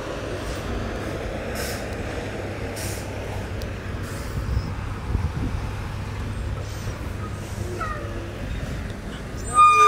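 Semi truck's diesel engine running low and steady as the tractor-trailer manoeuvres at walking pace, with two short hisses of air about two and three seconds in. Near the end a short, loud, high-pitched squeal cuts through.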